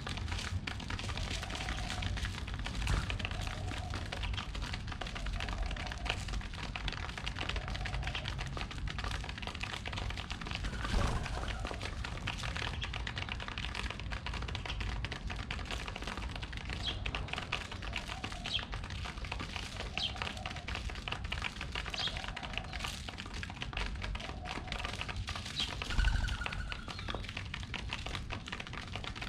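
Pigeons pecking at seed on the ground: a rapid, irregular patter of small taps, with a few short high chirps and a couple of louder knocks.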